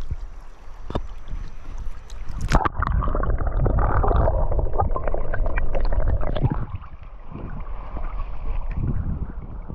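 River water gurgling and churning around a camera microphone that goes under the surface about two and a half seconds in, so that the sound turns suddenly muffled and dull. It is loudest for about four seconds, then drops to a quieter muffled wash near the end.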